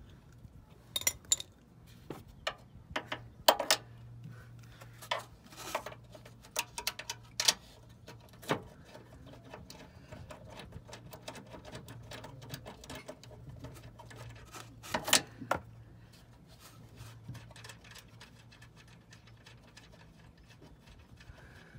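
Ratchet wrench with an 11 mm socket loosening a bolt: sharp metal clicks and knocks, many in the first eight seconds and another cluster about fifteen seconds in, with lighter quick ticking in between.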